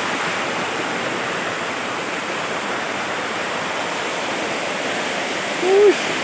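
Steady rush of a swollen, muddy river in flood, the water pouring fast over and around rocks. A short vocal sound comes in near the end.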